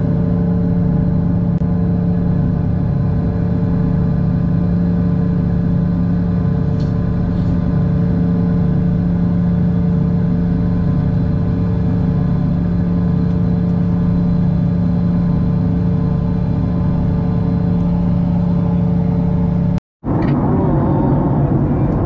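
Jet airliner engine noise heard inside the cabin: a loud, steady drone with a steady hum that doesn't change for about twenty seconds. It cuts out for a moment near the end and gives way to a rougher rushing cabin noise in light turbulence.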